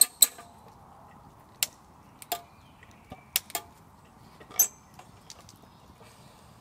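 Hurricane lantern being handled and relit with a lighter: about eight sharp metallic clicks and clinks, some ringing briefly, as its metal parts knock together and the lighter is worked.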